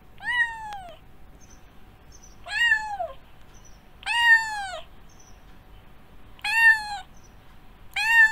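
Domestic cat meowing five times, about two seconds apart; each meow rises and then falls in pitch.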